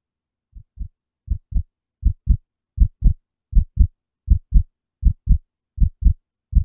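Heartbeat sound effect: paired low thumps in a steady lub-dub rhythm, about one beat every three-quarters of a second, fading in over the first two seconds.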